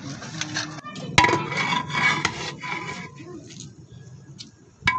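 Hands squelching and tossing wet chopped tomatoes, herbs and lemon in a large aluminium bowl, with a sharp knock about a second in. Just before the end, a long metal ladle knocks against a big cooking pot.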